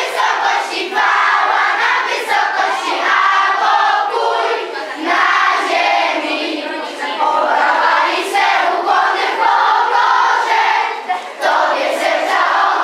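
A roomful of children singing loudly together, many voices in rough unison with some long held notes.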